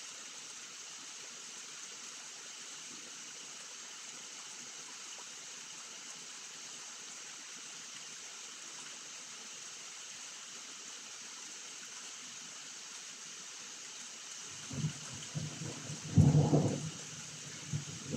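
Steady hiss of rain falling. Near the end a low rumble of thunder builds, peaks loudly a couple of seconds later and rolls on.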